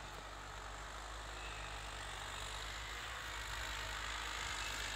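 Distant farm tractor engine running steadily as it pulls a disc plough through the soil, growing slightly louder toward the end.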